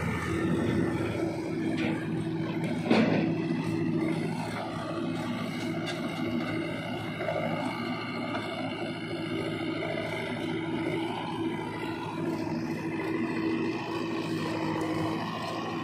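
Diesel engines of a backhoe loader and a tractor running steadily, with one loud knock about three seconds in.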